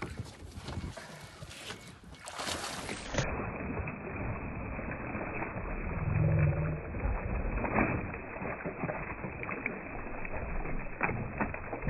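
Noise aboard a fishing boat at sea: a steady rush of wind and water with scattered knocks. The sound turns duller and more muffled about three seconds in.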